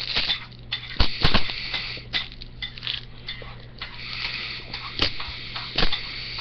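Airsoft BBs clicking and rattling inside a plastic pill bottle shooter as air is blown in through its pen tube. There are a handful of sharp clicks scattered through, and a breathy hiss of blowing in the second half.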